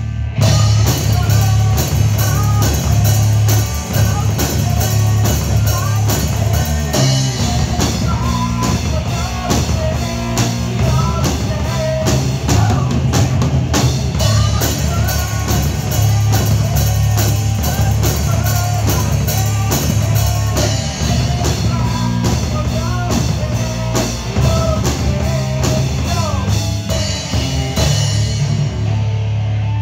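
Heavy rock band playing live: distorted electric guitars, a drum kit with dense cymbal and drum hits, and a singer's voice. Near the end the cymbals drop out as the song winds down.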